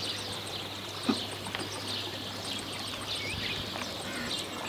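Birds chirping in the background over a steady low hum, with a single light knock about a second in.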